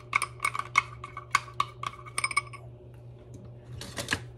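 A metal spoon clinking against the inside of a glass tumbler while stirring a thick mayonnaise sauce, about four ringing clinks a second. The clinking stops about two and a half seconds in, and a short clatter of taps follows near the end.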